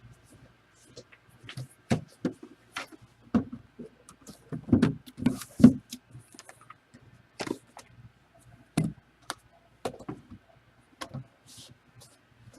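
Irregular knocks, taps and brief scraping sounds of objects being handled and set down on a table, loudest in a cluster about five seconds in.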